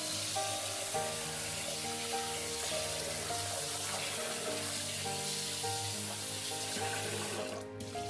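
Kitchen tap water running into a stainless steel pot as rice is rinsed in it; the stream stops near the end.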